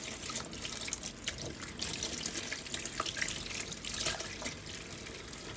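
Kitchen tap running in a steady stream into a stainless steel sink while bananas are washed under it by hand, with a few light knocks and splashes as they are handled.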